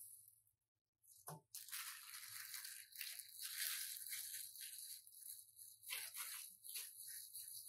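Hands in thin disposable plastic gloves squeezing and shaping crumbled tofu-steak mixture into a patty, with the glove plastic crinkling and the mixture squishing. After a brief gap and a click just after a second in, the rustling runs on faintly.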